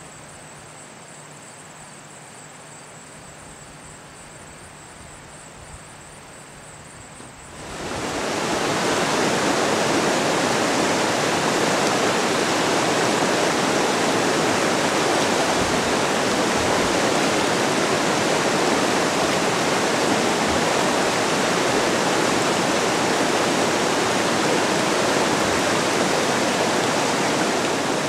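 Rushing river water: a faint steady rush that jumps, about eight seconds in, to a loud steady rush of fast-flowing water.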